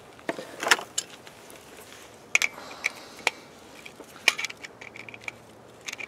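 Scattered metallic clicks, clinks and light rattles as a water-pump pressure switch and its wires are handled during rewiring.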